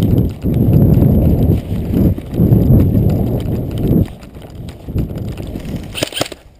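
Heavy thudding footfalls and buffeting rumble from a player running on grass with a body-worn action camera, loud for about four seconds and then easing off. A short clatter of sharp clicks near the end.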